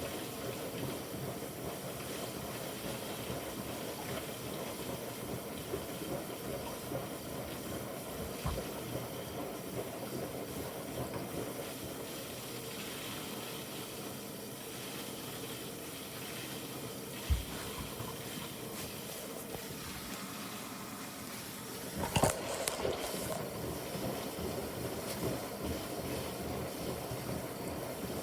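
Bosch washing machine partway through its Quick 15 wash, with a steady hiss of water in the drum. A few short thumps come through it, the loudest about 22 seconds in.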